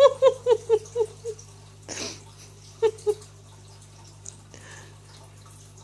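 High-pitched giggling: a quick run of about seven short 'ha' pulses that fade over a second and a half, then a short breathy sound about two seconds in and two more giggles about three seconds in.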